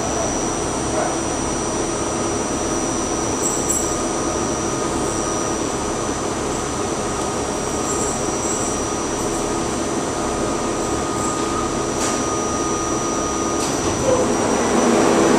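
R44 subway car running, heard from inside the car: a steady rumble with several steady whines over it, getting louder near the end.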